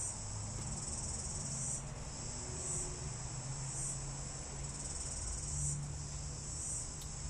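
Insects singing: a continuous high-pitched trill with brief dips every second or two, over a faint steady low hum.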